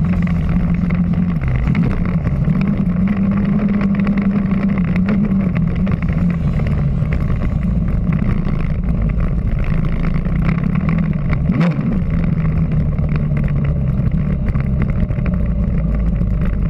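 Dirt bike engine running hard round a motocross track, its note rising and falling a little with the throttle. The note breaks off briefly once, about two-thirds of the way through.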